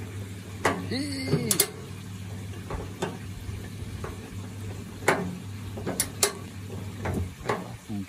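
Electric motor of a 1950s THOR washing machine/dishwasher combo running in the wash cycle with a steady, smooth low hum. Scattered sharp clicks and knocks come from the machine and its control knob.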